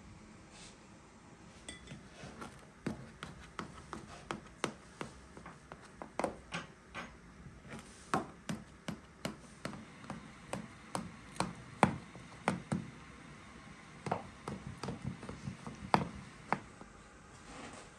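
A knife cutting a crumb-topped chocolate cake in a metal baking tray, the blade clicking and tapping against the tray in many quick, irregular strokes.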